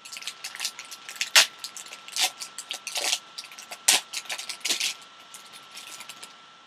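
Trading-card pack wrapper being torn open and crinkled by hand, a run of irregular sharp crackles with a few louder snaps about a second and a half in and near the four-second mark.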